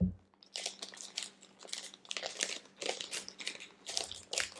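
A snack wrapper crinkling as it is opened by hand: a run of irregular crackles starting about half a second in.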